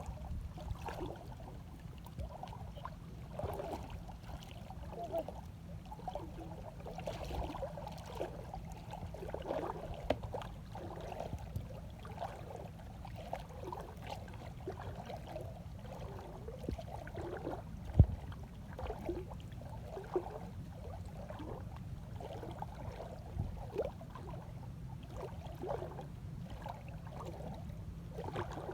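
Water gurgling and sloshing in many small, bubbly blips over a low steady hum, with one sharp knock about eighteen seconds in.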